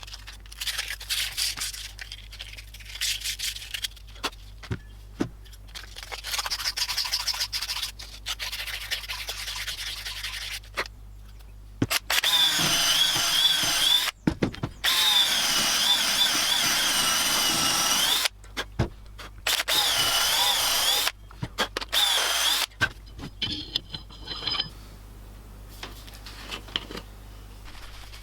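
A handheld power tool run in four loud bursts of a few seconds each, about halfway through, with a high whine that wavers slightly under load and stops abruptly between bursts. Before and after the bursts there are lighter scraping and rubbing sounds of hand work.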